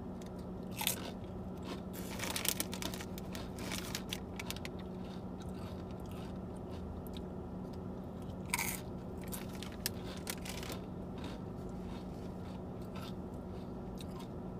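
Crunchy bites and chewing of SunChips whole-grain chips, the crunches coming in clusters with pauses between. A steady low hum runs underneath.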